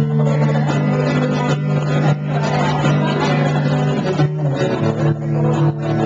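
Cutaway acoustic guitar being strummed, playing a continuous run of chords.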